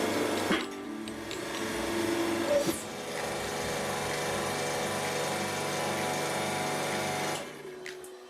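Hydraulic press running: a steady motor-and-pump hum with a couple of short sharp cracks, one about half a second in and one about two and a half seconds in. The hum drops away near the end.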